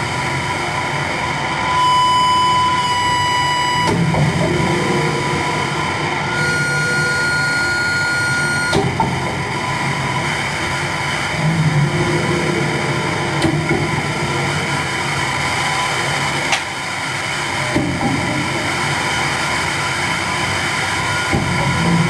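Live electronic music played on effects pedals and electronics: a dense, continuous wash of distorted noise over a low pulsing rumble. Steady high tones ring out over it about two seconds in and again from about six and a half to nine seconds, with a few sharp clicks.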